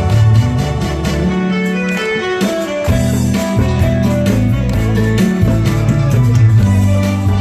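Instrumental introduction of a Korean trot song: a guitar carries the melody over a steady bass and drum beat.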